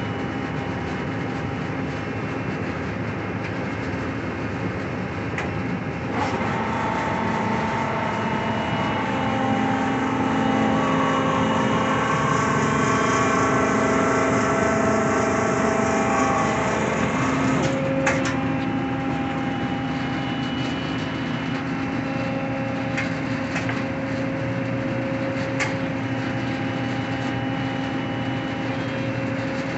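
Marvel 81A12PC vertical automatic band saw running under power, a steady mechanical hum. From about six seconds in, the hum grows louder with several steady whining tones. At about eighteen seconds a sharp click sounds and the saw drops back to the lower hum, with a few light clicks after.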